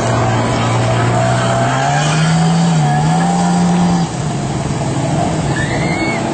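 Jet ski engine running hard, its drone rising in pitch about two seconds in and cutting back suddenly about four seconds in, over a steady hiss of water and wind.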